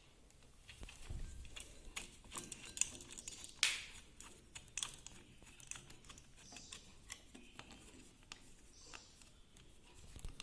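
Scattered light metallic clicks, taps and jingles, with a louder clack about three and a half seconds in: a small electric sewing-machine motor and its bracket being handled and fitted with a screw onto the back of the machine.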